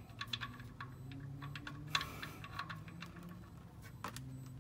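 Oil drain plug being unscrewed by hand from a Ford Ranger's oil pan: a run of light, irregular clicks and ticks, over a faint low hum.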